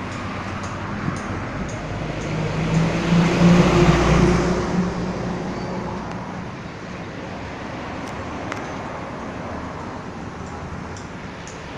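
Bus driving past: engine and tyre noise swell to a peak about four seconds in, then fade into steady traffic noise.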